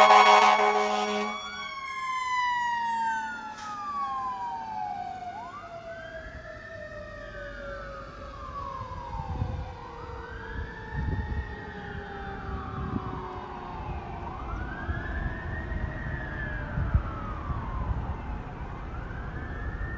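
Fire engine air horn blast that cuts off about a second in. After it, one siren tone winds slowly down in pitch while an electronic wail siren rises and falls about every three seconds, both fading as the engine pulls away.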